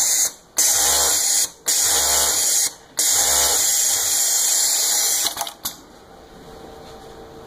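Zoje ZJ-C2521 electronic cylinder-bed coverstitch machine (galoneira) sewing knit fabric. It runs in four bursts with brief stops between them, stops a little over five seconds in, and gives two short blips after.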